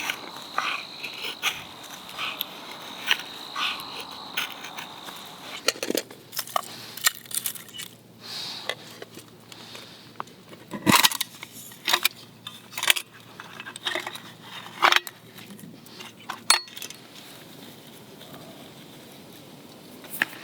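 A run of separate sharp clicks, knocks and light crunches from hands setting up a small camp twig stove and its kindling, uneven in strength with the loudest knocks around the middle. A steady high insect trill sounds under it for the first four seconds or so.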